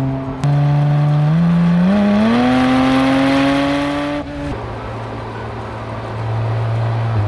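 Porsche 718 Spyder RS's 4.0-litre naturally aspirated flat-six engine accelerating, its note rising in pitch from about one to two and a half seconds in and then holding high. A little after four seconds it cuts off abruptly and gives way to a lower, steady engine drone.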